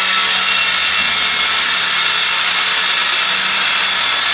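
A power tool running steadily, a loud, high hissing whine with a faint low hum under it.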